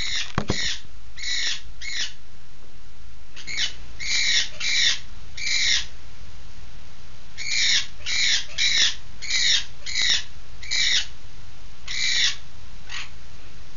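Pet bird squawking loudly and repeatedly: short, harsh calls in bursts of one to four, set off by a cat sitting on the wall outside.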